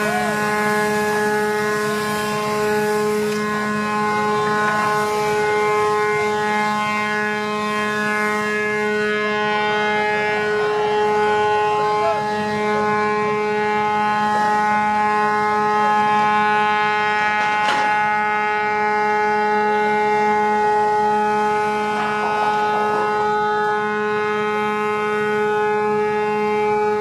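Large passenger ship's horn held in one long, unbroken blast at a steady pitch.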